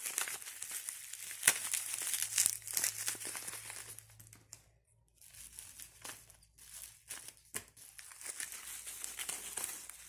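Plastic bubble wrap crinkling and polystyrene packing peanuts rustling and crunching as a hand rummages through a cardboard box, with a short pause about halfway through.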